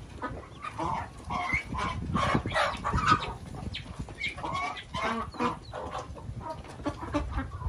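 Turkeys and ducks in a feeding flock making a run of short, overlapping calls and clucks, busiest about a second in through three seconds and again around five seconds.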